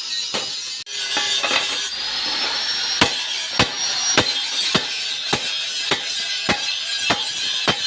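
A blacksmith's hammer striking a hoe blade on an anvil in an even rhythm, about two ringing blows a second, as the hoe is forged back to a sharp edge. The blows run over a steady hiss.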